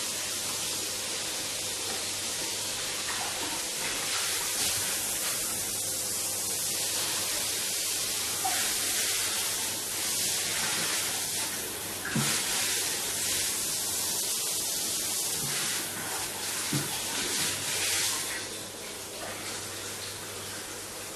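Water running steadily in a small bathroom, an even hiss, with a few brief knocks; it gets quieter near the end.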